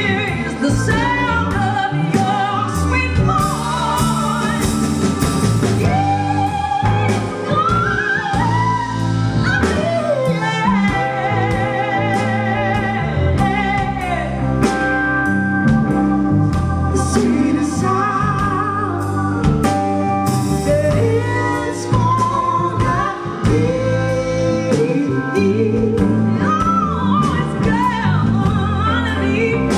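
A live band: a female lead vocalist singing, with vibrato on held notes, over a Nord Stage keyboard, electric guitar, bass guitar and a drum kit keeping a steady beat.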